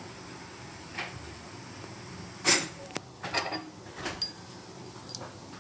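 A few scattered knocks and clatters, the loudest about two and a half seconds in. They come from kitchen handling as kadha ingredients (giloy stem, raw turmeric, cloves, black pepper and tulsi leaves) are put into a vessel ready for crushing.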